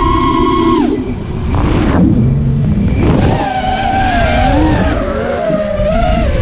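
A small motor whining, its pitch dropping away about a second in, then wavering up and down as the throttle changes, over a steady low rumble of wind on the microphone.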